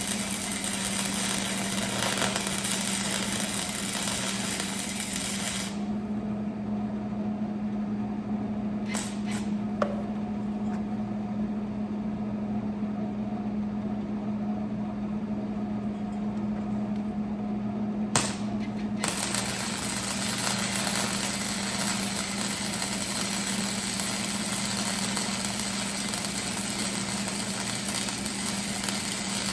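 Electric arc welding: the arc crackles and hisses steadily, stops for about thirteen seconds with a few sharp clicks, then strikes again and runs on. A steady low hum sits underneath throughout.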